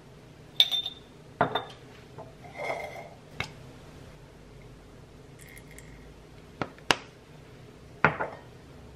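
Kitchenware clinking and knocking: a handful of sharp, separate hits as a measuring spoon taps and seasoning containers and a small bottle are handled and set down around a stainless steel mixing bowl.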